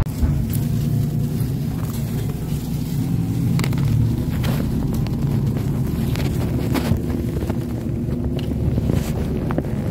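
Inside a moving city bus: the engine drones steadily under road noise, with scattered clicks and rattles from the bus body.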